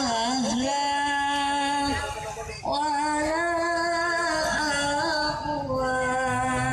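Singing with music: a voice holds long, slightly wavering notes, with a short break between phrases about two seconds in.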